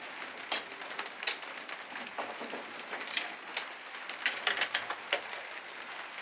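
Irregular metallic clicks and light knocks of hand tools working on the fittings of a small Makita mitre saw as it is taken apart, with a quick run of clicks near the end.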